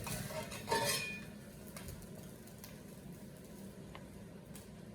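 Kitchenware being handled: one clink of a utensil against a dish or pan just before a second in, then a few faint ticks.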